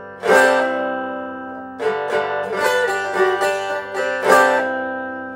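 Steel-bodied resonator guitar played acoustically: a C chord with a hammer-on and melody notes picked on top. A strum comes just after the start and another about two seconds in, then a quick run of single notes, and a last strum about four seconds in that rings out and fades.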